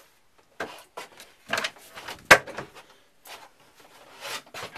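A run of wooden knocks, clunks and rustling as cabin fittings and a storage lid are handled, with one sharp, loud knock a little over two seconds in.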